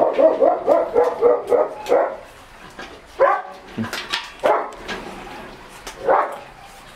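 A Shih Tzu yapping: a quick run of short, high yips for about the first two seconds, then a few single yips spread out, with light sharp clicks and knocks in between.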